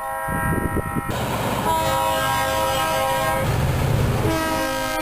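A multi-chime train horn blowing a chord over a low diesel rumble, in a long blast that breaks off about three and a half seconds in and resumes about a second later.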